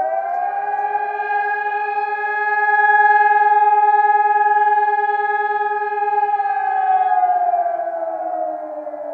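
Civil defence warning siren wailing at a steady pitch, then winding down with a slowly falling pitch from about seven seconds in.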